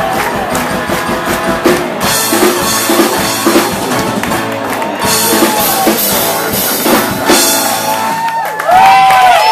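Live rock band with a drum kit playing. About nine seconds in, loud cheering and high-pitched screams from the audience break out over it.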